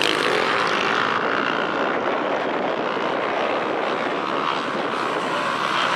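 Enduro motorcycle engines running on the race circuit, a steady drone.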